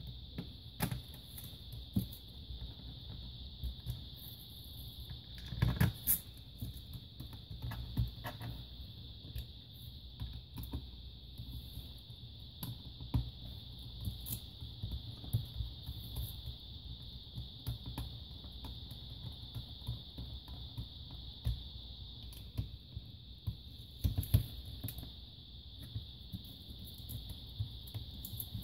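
Scattered small clicks and knocks of screws and a screwdriver being handled on a laptop's plastic bottom case while screws are driven back in, with louder knocks about six seconds in and again some seconds before the end. Under them runs a steady high-pitched whine and a low hum.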